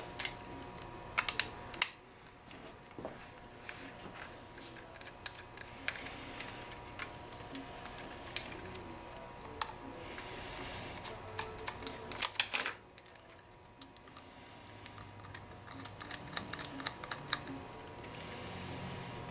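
Small sharp clicks and taps of a screwdriver, Torx screws and a laptop hard drive being handled while the drive's side mounting screws are removed, with a quick cluster of clicks a little over a second in and another about two-thirds of the way through.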